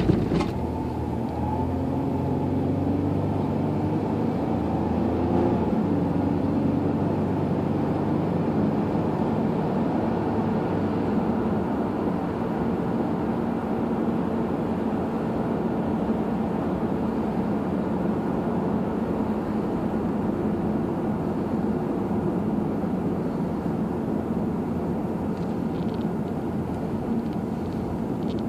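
Car engine and tyre noise heard inside the cabin while driving: the engine note climbs over the first several seconds as the car speeds up, then holds steady at cruising speed. A brief knock right at the start.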